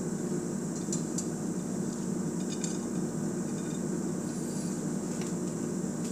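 A few light clinks and taps of a dinner plate and cutlery being handled, over a steady low background hum.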